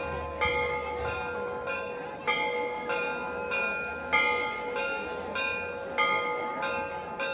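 Church bells being rung for a fiesta: quick, regular strokes about every two-thirds of a second with a heavier stroke about every two seconds, each ringing on over a steady hum from the bells.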